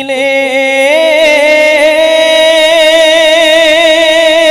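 A man's voice reciting a naat, holding one long, loud note with a wavering, ornamented pitch, amplified through a microphone.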